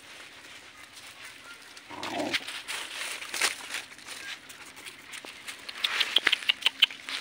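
Several dogs eating rice from a metal tray, their mouths making wet chewing and lapping clicks. About two seconds in, one dog gives a short call. Near the end there is a quick run of louder smacking clicks.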